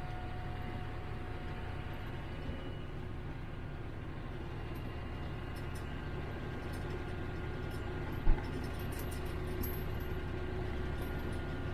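Farm tractor's engine running steadily, heard inside the cab as it tows a snowmobile-trail groomer over snow, with a faint steady whine. A single sharp knock sounds about eight seconds in.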